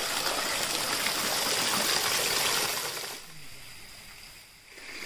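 Fountain jets spraying and splashing into a stone basin: a steady rush of water that drops off about three seconds in as the jets die down, then swells again near the end.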